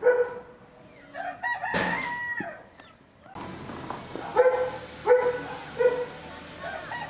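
A rooster crowing once, about a second in: a call that rises, holds a high note and falls away. Short pitched calls of another animal come at the start and three times a few seconds later.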